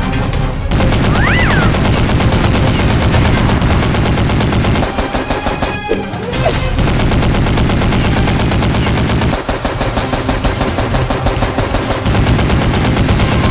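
Rapid, continuous machine-gun fire, with a brief let-up about five to six seconds in.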